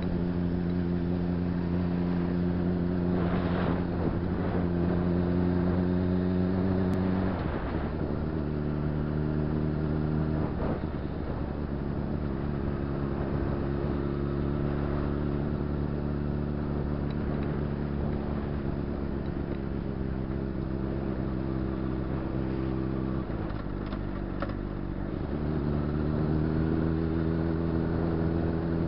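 Honda CBR600RR's inline-four engine running while riding through traffic, with wind noise. Its pitch steps down about seven seconds in and changes again near ten seconds. It dips near twenty-three seconds, then climbs again about two seconds later.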